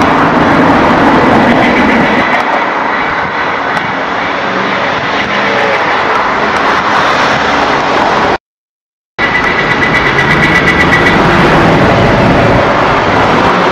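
Loud, steady, rushing vehicle noise with no clear rhythm, cut by a moment of complete silence a little past halfway.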